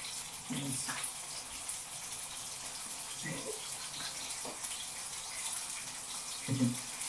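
A steady hiss, with a few short voice sounds about half a second, three seconds and six and a half seconds in.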